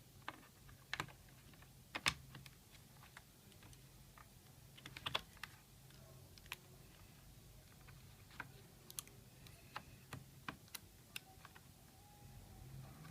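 Scattered sharp clicks and taps of hands working on a laptop, irregular and about one a second, with a small flurry about five seconds in, over a faint steady low hum.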